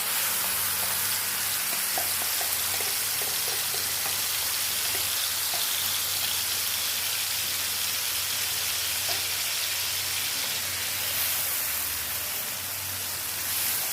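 Ground chili, tomato, shallot and garlic paste sizzling steadily in hot oil in a wok.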